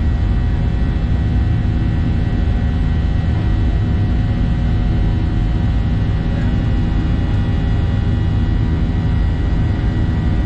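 Boeing 737-800 cabin noise in the climb, heard from a forward seat: a steady roar of the CFM56 turbofan engines and rushing airflow, with a few faint steady tones above it.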